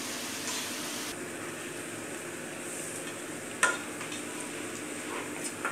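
Pasta being stirred in a pot as it fries with a steady light sizzle, with a sharp clack of the spoon against the pot about three and a half seconds in and a lighter knock near the end.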